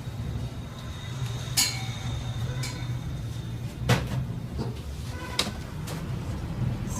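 Metal parts and tools knocking and clinking against each other as a cylinder head is reassembled: three sharp ringing knocks, the loudest about four seconds in, among a few lighter ticks, over a steady low hum.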